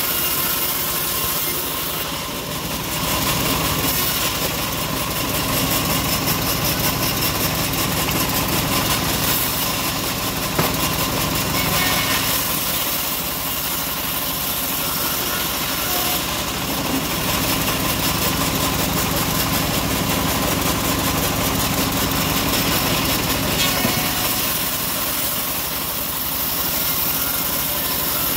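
Homemade bandsaw mill running steadily, its band blade ripping through teak wood as slabs are fed through.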